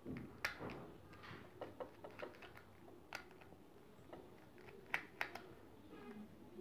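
Faint, scattered small clicks and taps of a Phillips screwdriver working the screws on a smartphone's plastic frame, with a few sharper clicks about half a second, three seconds and five seconds in.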